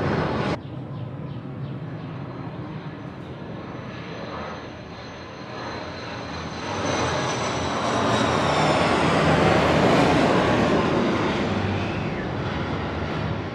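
Military jet landing, its engine noise swelling to its loudest about nine to ten seconds in and then fading, with a high turbine whine sliding slightly down in pitch as it passes. A louder engine sound cuts off abruptly about half a second in.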